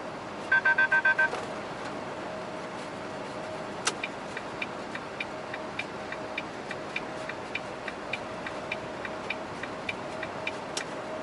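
A quick run of about seven electronic warning beeps about half a second in: an overspeed alert in the truck cab, set off by going over the road's 70 km/h limit. From about four seconds in, turn-signal indicator ticking at roughly two and a half ticks a second, over the steady hum of the truck cab.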